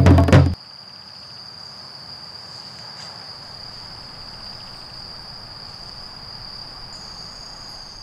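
Drum-led music cuts off about half a second in, leaving an insect's steady high-pitched trill over faint forest ambience. A second, higher insect tone joins near the end.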